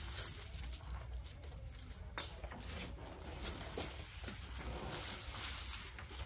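Black-and-white dairy cows eating grass from a concrete feed trough: scattered soft rustling and crunching of fodder as they chew, over a low steady rumble.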